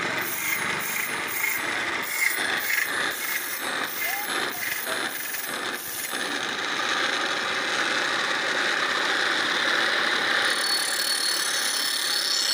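Bicycle-driven sharpening machine: regular mechanical clicks about twice a second for the first half, then the grinding wheel spinning with a steady whir that turns brighter and hissier near the end.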